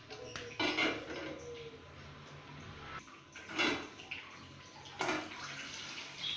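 Dishes and utensils clattering as they are handled, in a few short bursts, with a little water in the background.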